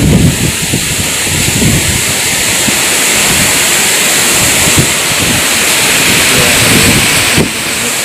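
Strong wind blowing hard: a loud, steady rushing whoosh, with low buffeting thumps of wind hitting the microphone.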